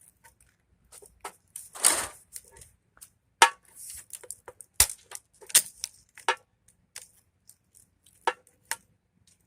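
Irregular sharp knocks, snaps and cracks, about a dozen in all, as the plastic housing of a TV's copper deflection yoke is broken off the neck of the picture tube. The loudest knocks come about three and a half and five seconds in.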